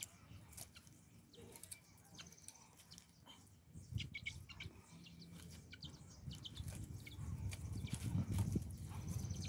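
Faint bird chirps over the light rustling and snapping of dry twigs being laid between cinder blocks for a fire.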